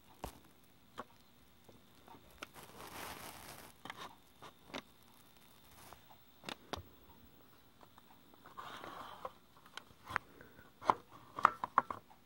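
Freshly cleaned and oiled Lionel Pullmor open-frame motor running quietly, a faint steady high whine, with scattered sharp clicks and brief rustles and a quick run of louder clicks near the end.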